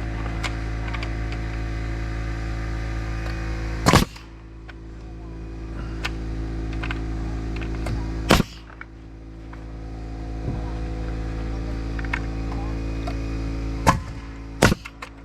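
Pneumatic nail gun firing four single shots, about four seconds apart and then two close together near the end, over the steady hum of a running air compressor.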